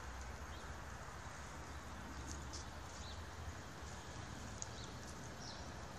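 Quiet outdoor background: a steady low rumble with a few faint, short, high chirps and light clicks.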